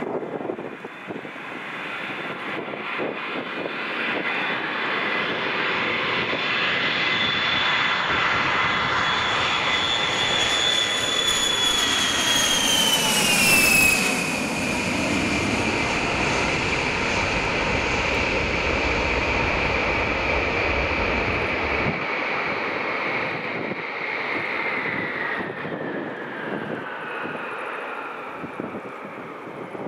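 Boeing E-3A Sentry AWACS, four TF33 turbofan jet engines, passing close by. The engine whine builds, then drops sharply in pitch as the aircraft goes past about halfway through, followed by a low jet rumble that slowly fades away.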